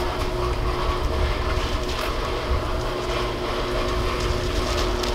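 Large sectional overhead door rolling up under an electric opener: a steady motor hum over a low rumble, with a few faint ticks.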